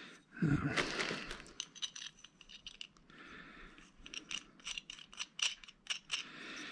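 Small metal hardware clinking and clicking as angle brackets, bolts and nuts are handled and fitted to a metal table frame with hand tools: a low knock about half a second in, then a run of many short, sharp metallic clinks.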